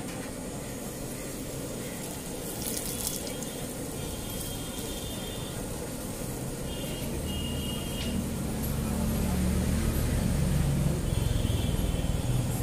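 Steady hiss from parathas cooking on a hot iron tawa over a gas flame, with a low rumble of passing traffic that swells in the second half.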